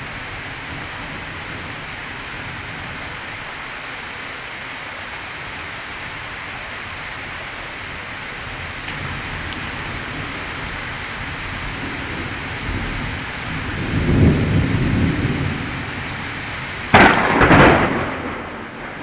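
Steady heavy rain with thunder. A low rumble swells about two-thirds of the way through, and near the end a sudden sharp thunderclap, the loudest sound, cracks and rolls off.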